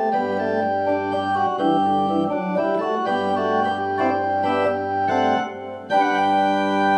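Organ music: shifting sustained chords, a brief drop in level, then a fuller chord held steady from about six seconds in.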